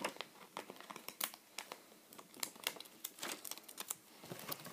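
A sheet of shiny stickers crinkling in the hands, in quick irregular crackles.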